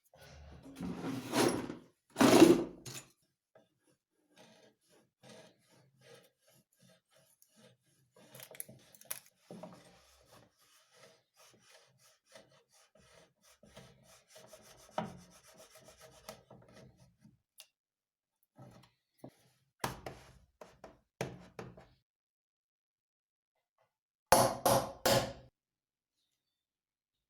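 Wood rubbing and scraping, in a few loud short strokes near the start and again near the end, with quieter scattered knocks and rustles between.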